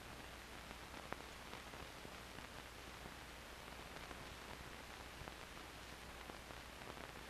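Near silence: the faint steady hiss and low hum of an old 16mm film soundtrack, with a few soft clicks of crackle.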